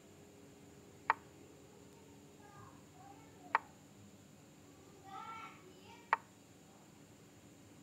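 Chess app move sound: three sharp clicks about two and a half seconds apart, one as each move lands on the board.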